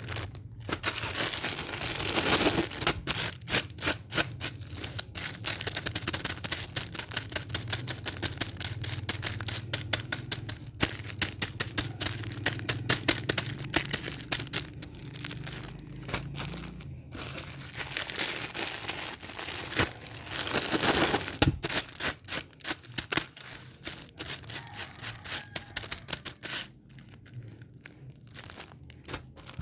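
Dense, irregular crackling and clicking that never lets up, over a low hum that fades out about halfway through.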